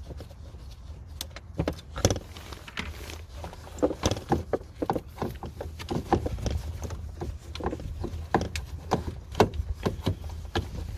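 Irregular clicks, knocks and rattles as a car's engine control unit is worked loose and pulled out of its mount in the engine bay, over a steady low hum.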